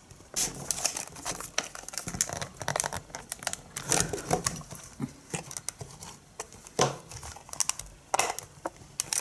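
Clear plastic cube box being gripped, squeezed and pried at by hand: plastic crinkling with irregular clicks and snaps as it resists opening.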